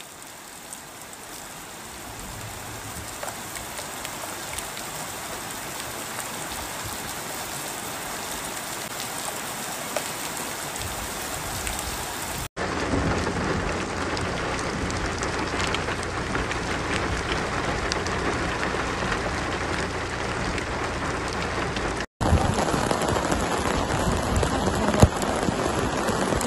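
Heavy rain pouring down as a steady hiss, broken by two brief cut-outs. The last part, from about 22 s in, is louder, with many small ticks from hailstones hitting the road.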